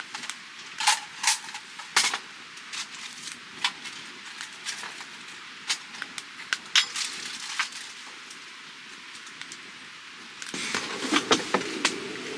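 Handling sounds of a brass folding candle lantern: paper packaging rustling and scattered sharp metal clicks as its hinged panels and top are opened, with a denser run of clicks near the end.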